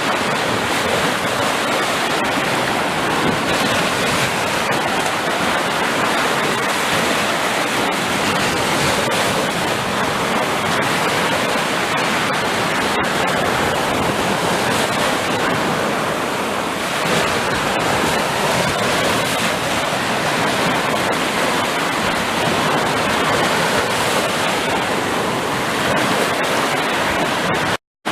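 Sea surf: a steady, dense rush of waves washing in. It cuts out to silence for a split second near the end.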